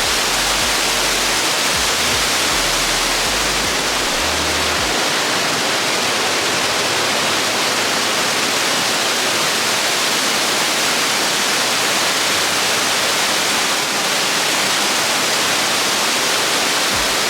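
Underground waterfall inside a cave: a loud, steady rush of falling water.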